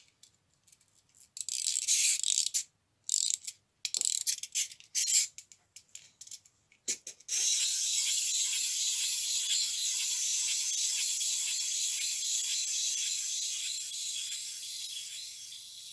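Clockwork crab toy being wound by its key, giving short bursts of ratcheting clicks for about six seconds. Then its spring motor is released and runs with a steady high whirring buzz while the toy walks, fading slowly near the end as the spring runs down.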